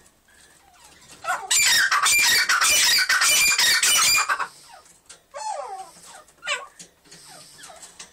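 Black francolin calling: a loud, rapid call lasting about three seconds, starting about one and a half seconds in. Softer short calls that fall in pitch come before and after it.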